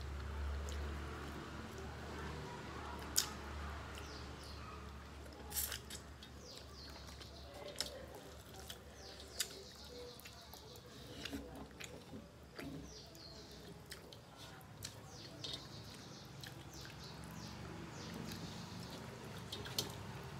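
Eating rice and curry by hand from metal plates: soft squelching and chewing, with occasional sharp clicks against the plates. Small birds chirp repeatedly in the background, mostly in the middle stretch.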